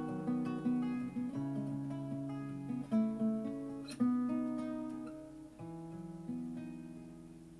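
Solo acoustic guitar playing picked notes and a few strummed chords, no voice, as the closing bars of a song. Near the end a last chord is struck and left to ring out and fade.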